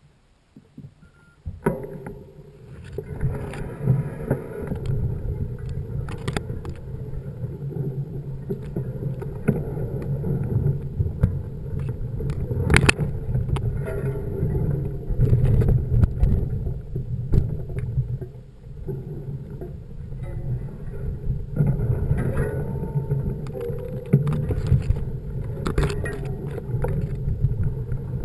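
Mountain bike riding over rough ground: a steady low rumble with frequent knocks and rattles, starting suddenly about a second and a half in.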